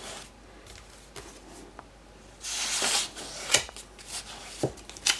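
Books being pulled out and slid back into place on a wooden shelf: a rubbing scrape of book against book about halfway through, then a few light knocks as they are set down.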